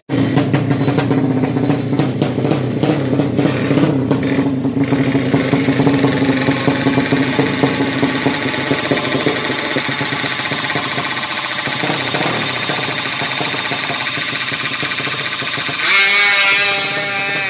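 A 200cc horizontal-cylinder ('sleep engine') four-stroke drag-bike engine running at idle with a pulsing, uneven beat, briefly revved louder near the end.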